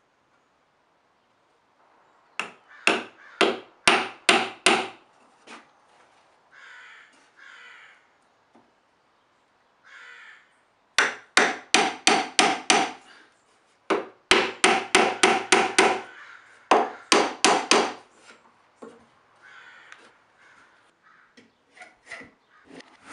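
A steel hammer driving small nails into a pine edge strip on a plywood shelf, in four runs of quick blows about three a second. Fainter bird calls come between the runs.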